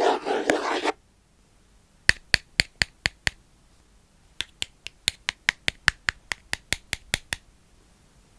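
A dense rustling, rubbing noise stops about a second in, then sharp, quick taps follow in two runs: six taps at about five a second, a short pause, then about fifteen more at the same pace.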